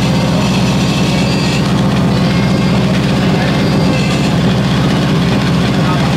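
An engine idling steadily at an even pace.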